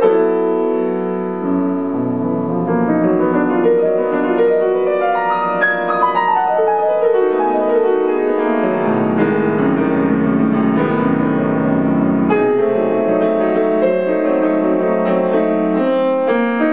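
Grand piano played solo: a flowing passage of many overlapping, ringing notes over low held bass notes, the bass shifting twice along the way.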